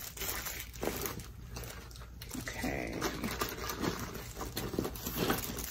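Rustling and handling of a bag and plastic wrapping while rummaging for a bottle of powder, with a few faint low vocal sounds.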